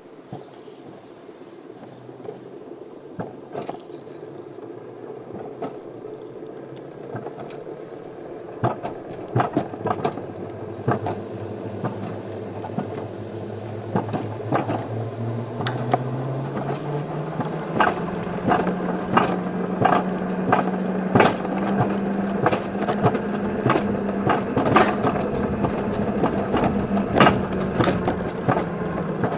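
Wiegand alpine coaster sled rolling down its raised tubular steel rails, heard from aboard, gathering speed: a rolling hum that rises in pitch and grows louder over the first half, then holds steady, with many sharp clacks that come thicker and louder as it goes.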